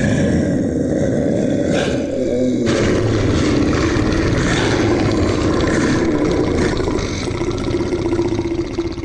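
Monster growl sound effect: one long, rough, continuous growl that turns raspier about three seconds in.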